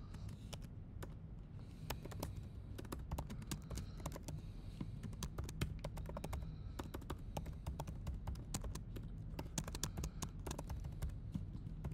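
Typing on a computer keyboard: a quick, irregular run of key clicks, over a steady low hum.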